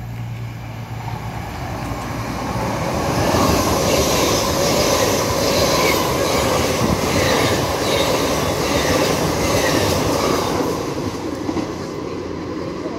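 A passenger train passing close along the platform. The rumble of its wheels and coaches builds over the first few seconds, holds loud for about seven seconds with a regular wheel clatter, then fades as the train draws away.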